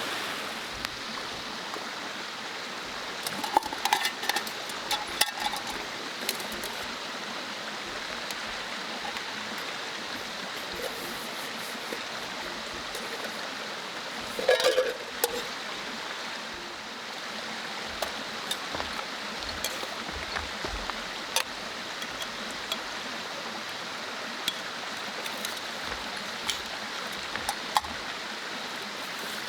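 Steady rushing of a mountain stream, with scattered light clinks and taps that cluster about four seconds in and again around fifteen seconds.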